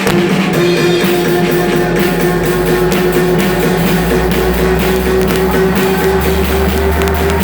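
Live band music with drums: many quick drum hits over sustained held chords and a deep bass line that swells about four seconds in.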